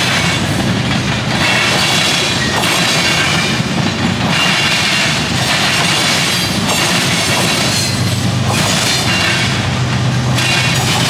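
Freight cars of a CN train rolling across the diamond crossings, their wheels pounding over the crossing with a rhythmic clatter every couple of seconds. A high wheel squeal comes and goes over a steady low rumble.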